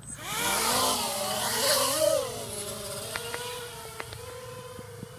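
Xbird 250 racing quadcopter's brushless motors and 5-inch props spinning up suddenly on takeoff, a whine that wavers up and down in pitch for about two seconds, then settles into a quieter, steadier whine as the quad flies off.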